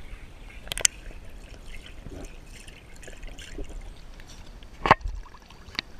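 Pool water lapping and splashing around a waterproof action camera held at the surface, the sound muffled as the camera dips underwater, while a swimming Australian Shepherd paddles close by. Two brief sharp sounds stand out, about a second in and near the end.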